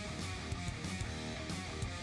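Background music: guitar-driven track with a steady beat.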